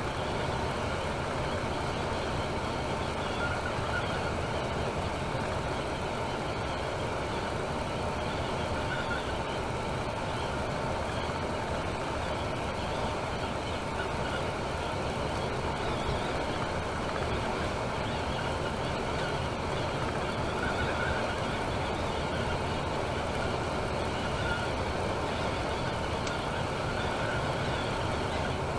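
Steady running noise of a Temsa Maraton coach cruising on a motorway: engine drone mixed with tyre and road noise, even in level.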